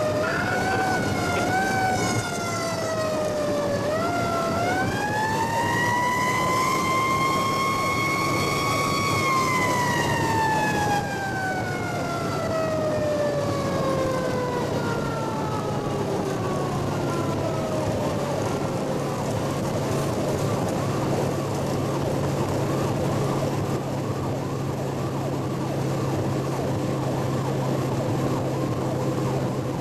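Fire truck siren heard from inside the truck's cab. It gives a few short rising pulses, winds up to a peak, then slowly winds down over about eight seconds and dies away. Under it runs the steady drone of the truck's engine and road noise.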